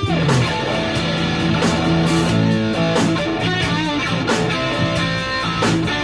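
Amplified electric guitar playing a blues jam in A, with sharply attacked notes and chords ringing on over one another.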